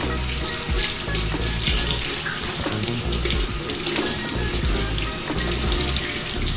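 Kitchen tap running water into a sink in a steady stream.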